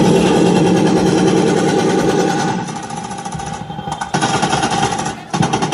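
War sound effects played over the loudspeakers of a light-and-sound show: a loud, rapid rattle of gunfire, easing for a moment about halfway through before picking up again.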